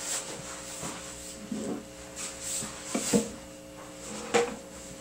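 A few light knocks and rubbing sounds, strongest about three seconds in and again near the end, over a steady hum.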